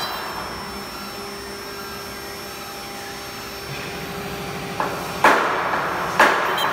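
CNC router spindle running with a steady whine as the head moves between hole positions. From about five seconds in, the bit plunges into the wooden board in three short, loud, noisy bursts.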